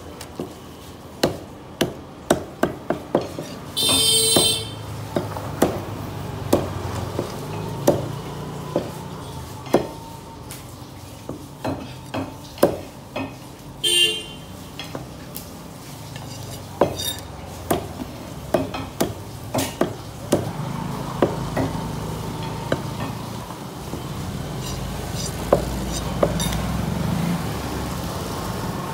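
A large curved fish-cutting knife chops through Asian sea bass on a wooden log chopping block, giving irregular sharp knocks, often several a second in quick runs. A short high-pitched ringing sound comes about four seconds in, and again briefly near fourteen seconds.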